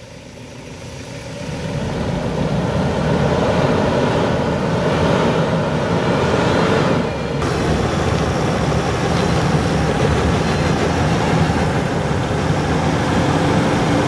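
Toyota Land Cruiser Prado's engine running hard under load while its tyres spin and churn in deep mud. It grows louder over the first two seconds, then holds steady.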